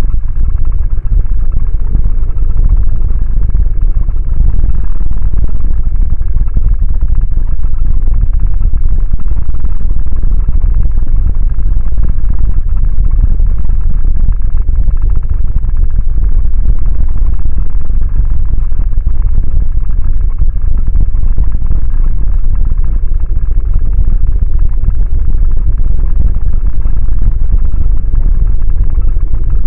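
A loud, steady deep noise that runs on without pauses, breaks or separate events.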